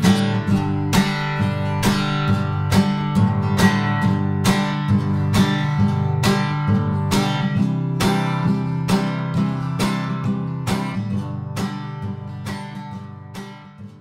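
Outro music: an acoustic guitar strumming a steady rhythm, fading out near the end.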